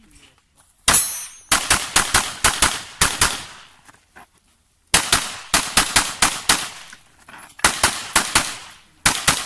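Rapid gunfire from a 9mm Glock 17 pistol fitted in a Hera Arms Triarii carbine chassis. A single shot comes about a second in, then four quick strings of several shots each, separated by short pauses.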